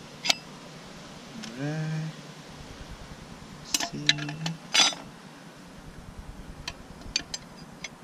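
Clutch plates in a 4L60E transmission case clinking as they are set in and pressed down by hand: a few sharp metal clinks, the loudest near the start and around four to five seconds in, then lighter ticks. A man hums briefly twice.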